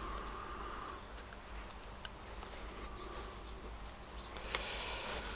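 Quiet workshop background with faint high bird chirps in two short spells and a few light clicks as the spring-loaded brushes are lifted out of a Bosch starter motor's brush holder.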